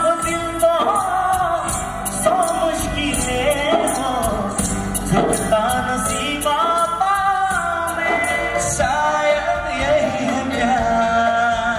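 A singer performing a song with a live band, the voice carrying a wavering melody over drums and guitar, with a steady cymbal beat.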